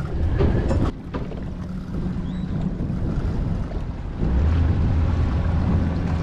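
Twin Mercury Verado 300 V8 outboard engines running, with a couple of knocks near the start, their hum getting louder about four seconds in.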